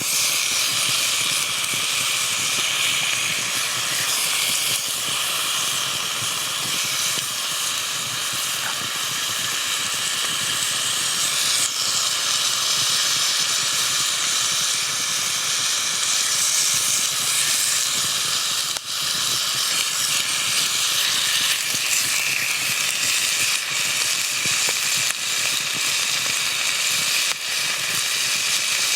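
Food frying in a hot pan, a steady loud sizzle that starts abruptly.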